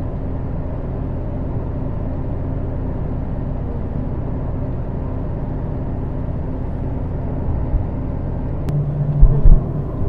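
Steady road and engine noise of a car driving along a highway, with a couple of short low thumps about nine seconds in.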